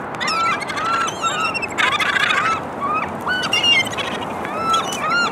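A feeding flock of gulls calling over one another, a steady stream of short, arched, nasal cries, with a dense tangle of squabbling calls around two seconds in.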